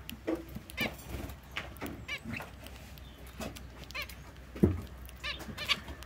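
Zebra finches giving short repeated calls, about ten of them spread unevenly through the span, with one sharp knock about three-quarters of the way through.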